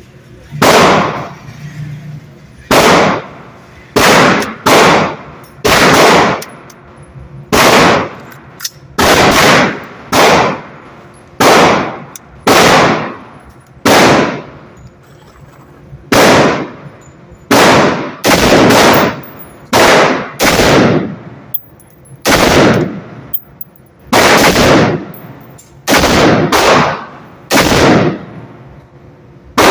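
Gunshots fired one after another at a shooting range, about twenty shots at roughly one a second with uneven spacing, some in quick pairs. Each shot is loud and leaves a short echoing tail.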